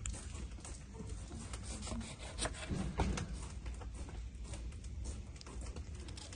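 Kitchen knife cutting through a lemon on a wooden cutting board: a few short sharp knocks as the blade meets the board, over a steady low background rumble.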